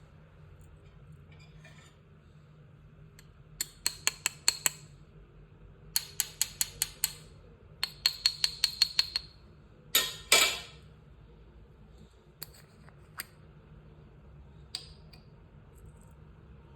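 Purple slime being pressed and worked, giving three runs of crisp clicking pops, then a longer, louder squelching crackle and a few single pops.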